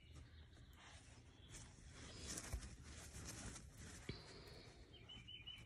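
Near silence: faint outdoor ambience, with a small bird's trilling chirps near the end.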